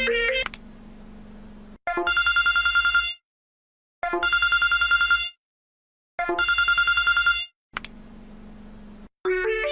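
Telephone ring: three trilling rings of steady pitch, each a little over a second long, with short pauses between them. A tune breaks off just before the rings and starts again near the end.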